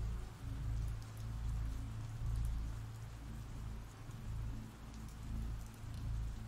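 Steady rain falling, with a low rumble underneath that swells and fades every second or so.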